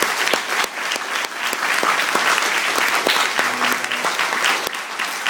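Audience applauding: many hands clapping together in a dense, continuous spread of claps.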